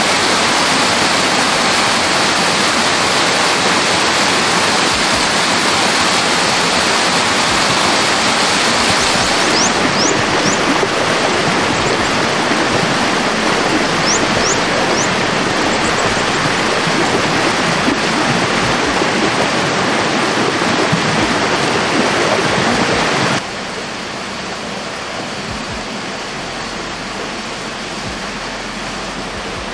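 Loud, steady rushing water noise, dropping abruptly to a quieter level about 23 seconds in. A few faint, short, high chirps come about ten and fifteen seconds in.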